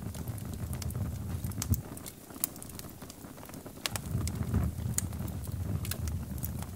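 Wood campfire crackling, with sharp, irregular snaps and pops over a low rumble of the flames.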